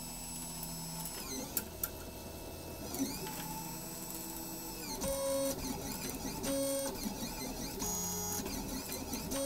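A Solidoodle 3D printer's stepper motors whining as the print head and bed move, laying down the first outline of a print on a glass bed. The tones shift and glide in pitch with each move, with short clipped tones in the second half.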